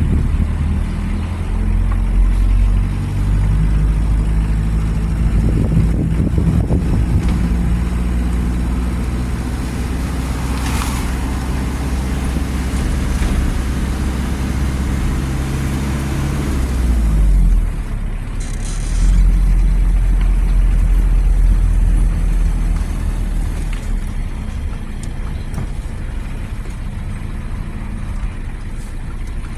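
Heavy diesel engine of construction machinery running, its note stepping up and down as the load changes, with a brief hiss about ten seconds in and a shift to a lower, steadier note a little past halfway.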